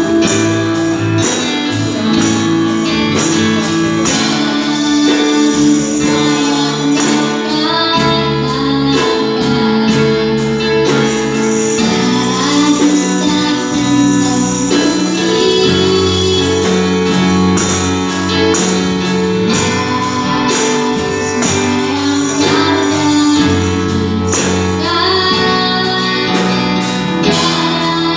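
Music: a song with a voice singing a melody over instrumental accompaniment.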